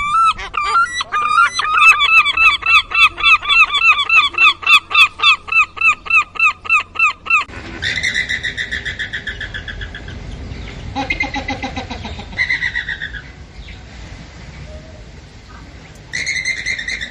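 A series of bird calls: first one rapid run of repeated calls, about three a second, then an abrupt switch to a different bird's repeated calls, with several distinct calls following.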